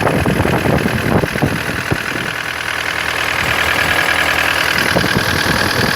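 Toyota 1KD-FTV four-cylinder turbodiesel idling with its diesel clatter. A steady high squeak from around the alternator runs over it and grows stronger in the second half.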